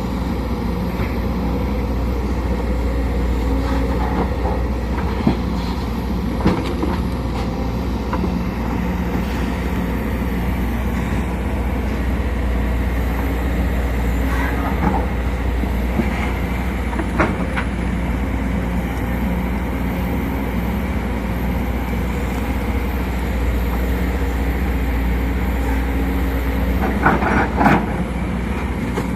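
Sumitomo SH210 excavator's diesel engine running steadily at working speed, with a few short knocks and clanks, several together near the end.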